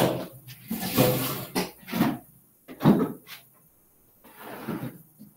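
Someone rummaging through small boxes of belongings: a sharp knock at the start, then irregular bumps, scrapes and rustles with short pauses.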